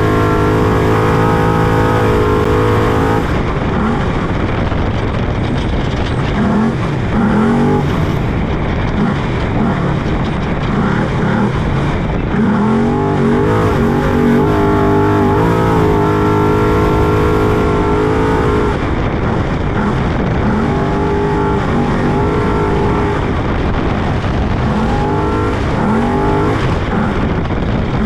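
Trophy truck engine at race pace, heard from inside the cab. It is held at steady high revs at first, then rises and falls again and again as the throttle comes on and off, over a constant rumble of the truck running across the ground.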